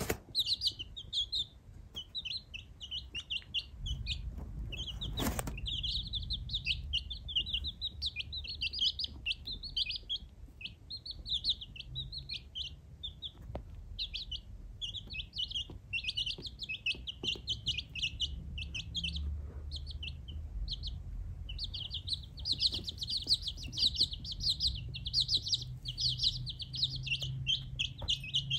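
A group of baby chickens peeping continuously: fast, high-pitched chirps overlapping without a break, with a low rumble underneath from about four seconds in.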